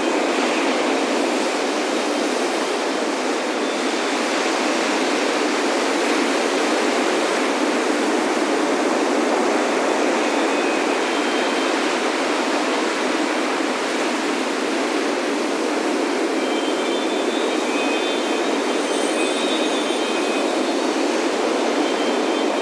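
Steady wash of ocean surf breaking on a beach, with wind chimes ringing lightly now and then, most often in the last few seconds.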